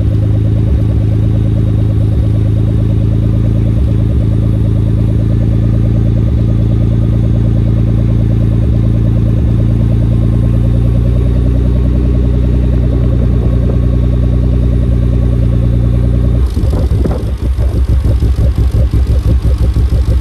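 The twin-turbo V6 of a 1995 Nissan 300ZX, fitted with a 3-inch exhaust and test pipes, idling steadily and loudly at the tailpipes. About three-quarters of the way through, the idle abruptly turns choppy and uneven. This fits the Haltech rotational idle being switched on, which cuts cylinders in turn to help cool the engine bay.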